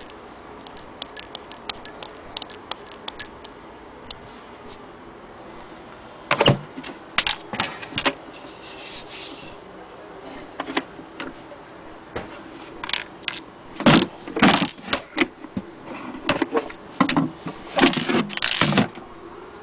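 Handling noise of a wooden sewing-machine case: faint scattered ticks at first, then from about six seconds in, irregular sharp knocks, clatter and a brief scrape as the cover and base are moved about.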